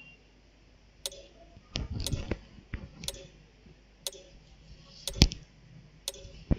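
Quiz timer ticking once a second, a sharp click each second as it counts up. A few dull knocks fall between the ticks, the loudest about five seconds in.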